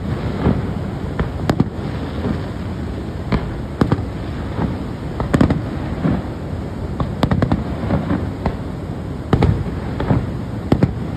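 Aerial fireworks shells bursting in an irregular string of sharp bangs, one or two a second, over a steady low rumble.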